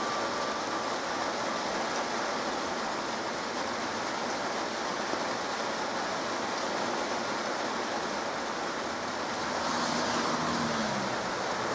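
Heavy rain falling steadily, a dense even hiss, swelling slightly near the end.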